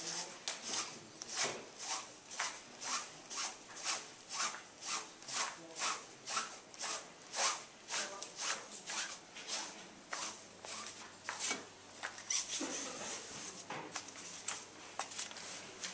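Rope being fed hand over hand down through a telescopic rescue pole, a rhythmic rasping rub of rope against the tube about twice a second, becoming irregular after about twelve seconds.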